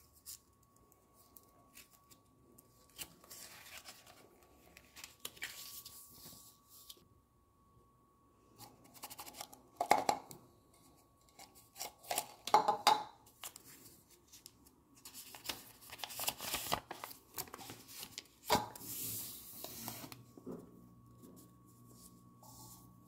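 Hands handling toy packaging: paper and plastic rustling and crinkling in uneven bursts as a folded paper leaflet is pulled from a plastic cauldron and unfolded. The louder handling comes around the middle.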